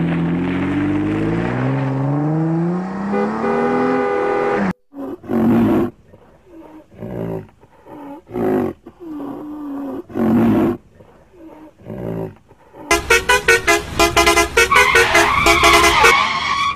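A vehicle engine revving, its pitch rising steadily for nearly five seconds before it cuts off abruptly. Then a string of about six short animal-like calls with gliding pitch, a second or two apart, and near the end a fast, loud series of pulses.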